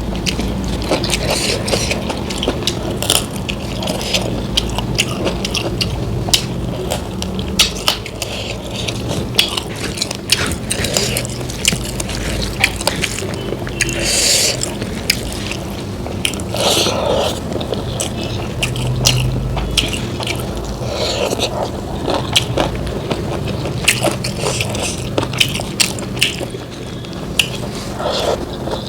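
Close-miked eating: food being bitten and chewed, with many quick, irregular wet clicks and crunches from the mouth.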